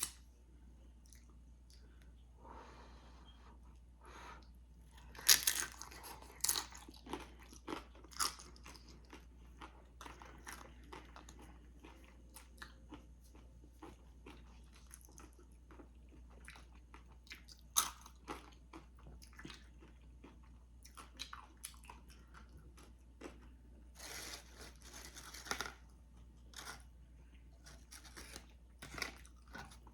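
Close-up chewing and crunching of tortilla chips loaded with spinach artichoke dip: sharp crunches about five seconds in and again near eighteen seconds, a longer spell of crunching a few seconds later, and softer wet chewing in between.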